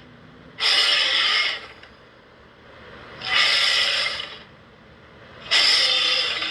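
Monster creature sound effect: three harsh, hissing, breathy blasts, each about a second long, about two and a half seconds apart.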